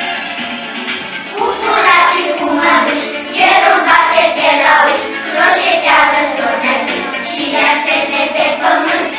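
A group of young children singing a song together over a music backing track with a steady beat.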